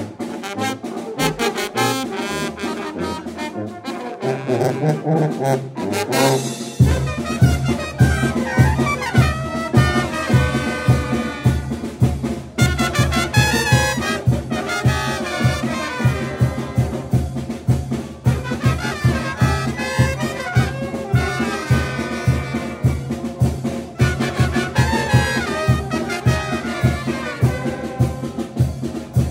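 Brass band (banda de viento) playing, trumpets and trombones over a snare drum. About seven seconds in, a deep bass line and a steady beat come in.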